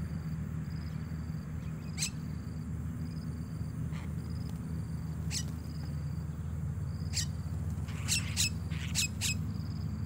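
Mynas giving short, sharp calls, scattered at first and then four in quick succession near the end. Underneath are a faint high chirp repeating about twice a second and a steady low hum.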